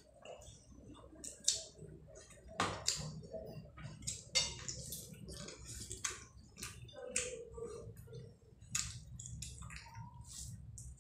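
Close-up eating sounds: wet chewing and lip smacks, and a hand squishing rice and curry together on a plate, as a string of short sharp clicks and smacks.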